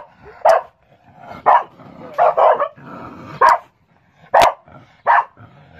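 Large black dog barking at an animal caught in a wire cage trap: about seven short, loud barks, roughly one a second and unevenly spaced.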